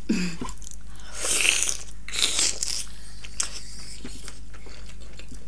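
Close-up eating sounds of buffalo momo and fried chicken lollipop being bitten and chewed, with two louder wet, noisy bursts about one and two seconds in and a few small clicks after.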